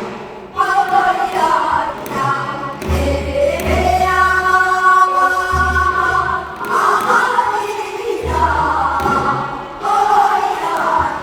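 Korean traditional folk singing: voices singing a melody with long held, wavering notes, over a low accompaniment that comes and goes.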